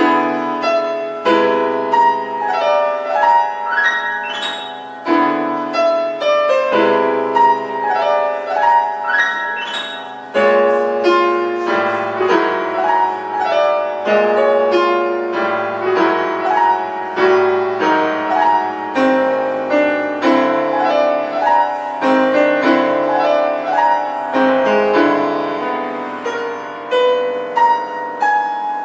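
Solo piano playing a classical piece: many quick notes in the middle and upper register over held low notes, with a short break in the flow about ten seconds in.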